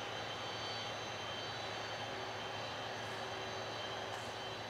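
Boeing 747-400's jet engines running steadily at low power as the freighter taxis: an even rushing hum with a high-pitched turbine whine held over it.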